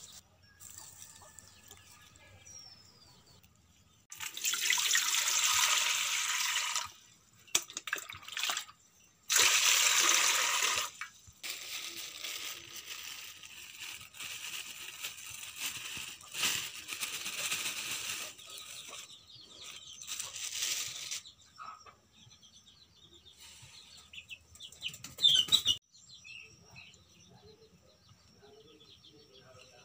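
Water splashing and pouring in a steel pot as freshly picked leafy greens are tipped in and washed, in a few loud bursts with quieter stirring between.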